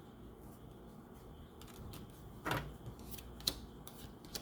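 Faint night chorus of frogs and crickets coming in through an open door, broken by a few sharp clicks and knocks, the loudest about two and a half seconds in and another a second later.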